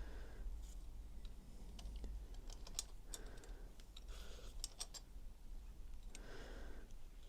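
Light metallic clicks and ticks of small hand tools working on a motorcycle engine's valve gear, with a few short soft scrapes, as the valve clearances are set with feeler gauges and a spanner.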